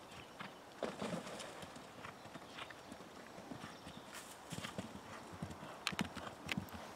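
Faint hoofbeats of a horse cantering on turf, heard as scattered, irregular thuds.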